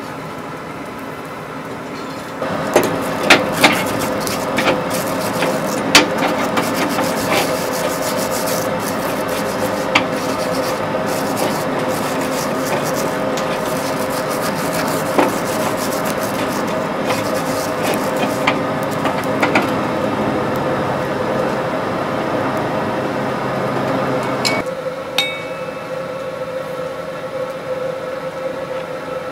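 Coal forge with air blown through the fire, a steady rushing noise with a hum, broken by the scrape and clink of a tool working the coals. About 25 seconds in the rushing drops away and a single sharp metal tap rings.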